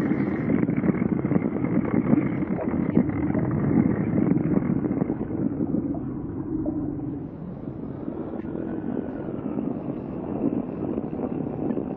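Steady, low, noisy ambient drone of a sound-effects bed, with no distinct events. It eases slightly about seven seconds in.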